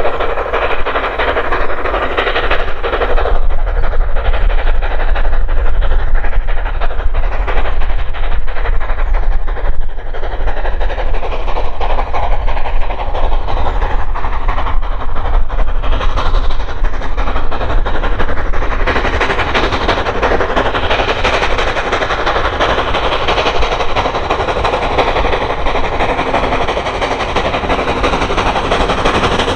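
A steam-hauled train passing close by, running steadily with its wheels clattering over the rail joints.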